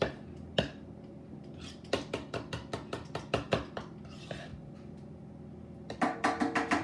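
Utensils clinking against dishes: a couple of single taps, then a quick run of about six taps a second, and a denser run of ringing clinks near the end.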